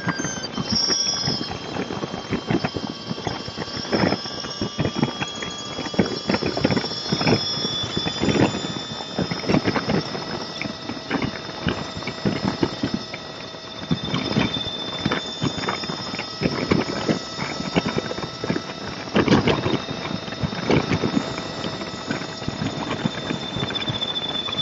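Road and wind noise on a vehicle-mounted camera at freeway speed, broken by frequent irregular knocks and rattles, with faint steady whines underneath.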